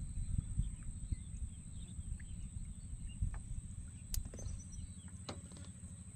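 Open river ambience: a low, uneven rumble under a steady high-pitched whine, with scattered faint bird chirps and two sharp clicks a little past the middle.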